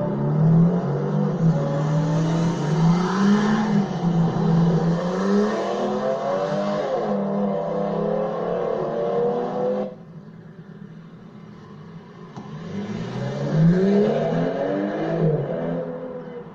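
Supercar engines revving and accelerating, their pitch rising and falling. It cuts off abruptly about ten seconds in, and after a quieter stretch another car accelerates, its pitch climbing.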